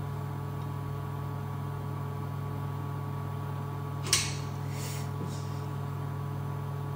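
Steady low machine hum, with a sharp click about four seconds in and a fainter one shortly after.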